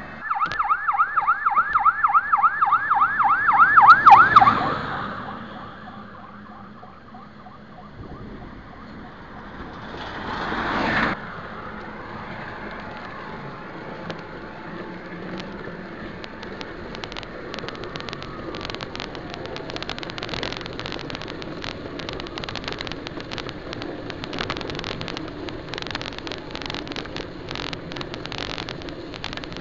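Fire engine siren on a fast yelp, about five quick up-and-down sweeps a second, loud for the first four seconds and then fading away as the truck pulls ahead. After a rising rush that stops sharply about eleven seconds in, steady wind and road noise with frequent crackles from travelling behind it.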